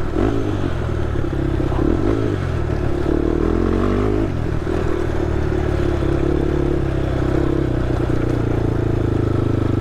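Honda TRX ATV engine running steadily while the quad is ridden along a trail, its note shifting about four seconds in.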